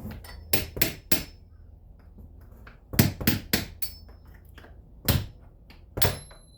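Hammer striking a steel punch set under the lip of a door hinge pin, driving the pin up out of the hinge: about nine sharp metallic taps in three uneven clusters, a few with a brief high ring.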